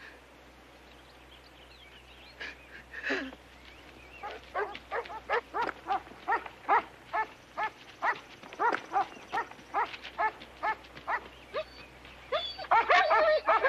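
Dogs barking: a steady run of barks about two or three a second, turning into louder, overlapping barking from several dogs near the end.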